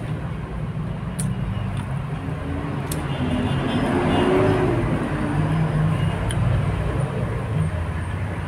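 Road traffic outside: a steady low engine rumble, with one vehicle passing louder about four seconds in, its engine note rising and then falling. A few faint clicks sound over it.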